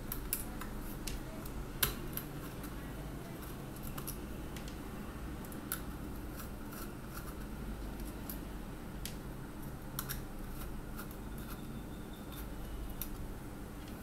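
Small screwdriver backing out the screws of a 12 V car power inverter's metal end plate: scattered small metallic clicks and scrapes with a few sharper ticks, over a low steady hum.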